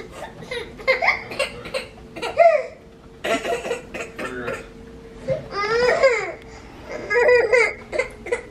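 A baby babbling and laughing in short high-pitched bursts, some in quick repeated pulses, over a faint steady hum.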